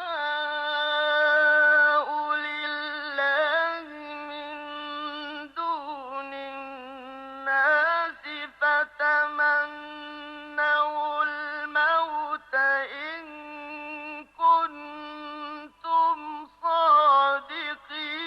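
A male reciter chanting the Qur'an in the melodic mujawwad style, a single high, clear voice without added reverb or effects. He holds long notes with ornamented turns and breaks off for short breaths, and his last note fades out right at the end.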